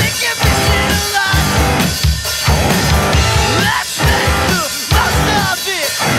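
Rock band playing live: electric guitar and drum kit, with a singer shouting into the microphone.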